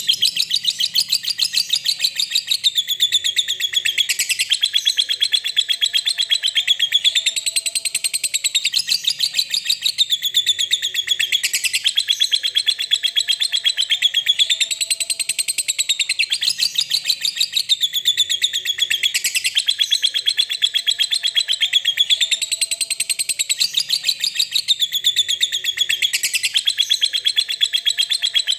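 Lovebird's ngekek: a long, unbroken, rapid high-pitched chatter whose pitch swells up and falls back in waves every two to three seconds.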